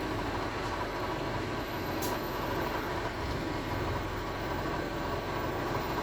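Interior running noise of a Wright StreetDeck double-decker bus with a Daimler OM934 four-cylinder diesel, a steady engine and road rumble while under way, with one short click about two seconds in.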